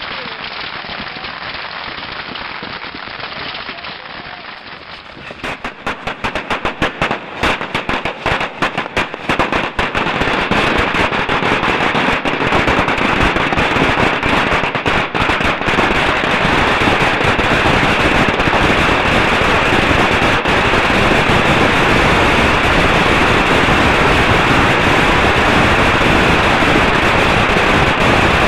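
Masses of fireworks going off: a steady hissing crackle for the first few seconds, then rapid sharp cracks that start about five seconds in and thicken into a continuous, dense crackle from about ten seconds in.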